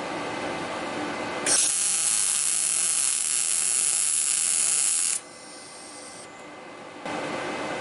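PrimeWeld MIG 180 welder laying a short MIG weld bead: the arc strikes about a second and a half in, crackles and hisses steadily for nearly four seconds, then cuts off suddenly. A steadier, lower hum runs before the weld and comes back near the end.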